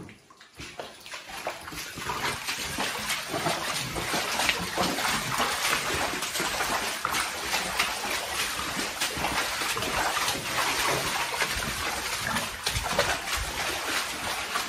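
Rubber boots wading through shin-deep water along a flooded coal-mine gangway, a steady run of sloshing and splashing that builds up over the first couple of seconds.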